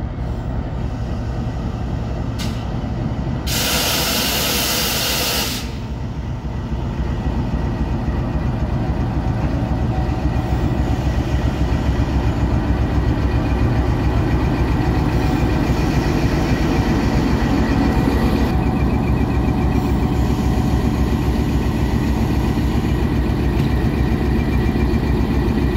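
GE U20C (GEU-20) diesel-electric locomotive running, its engine a steady drone that gets louder from about eight seconds in. A burst of air hissing, about two seconds long, comes a few seconds in.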